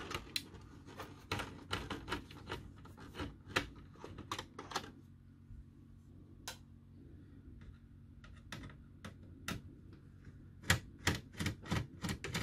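Hand screwdriver undoing the screws that hold the power-supply board in a Sony BDP-S185 Blu-ray player's metal chassis: runs of quick dry clicks and ticks, sparse for a few seconds in the middle, then a fast run again near the end.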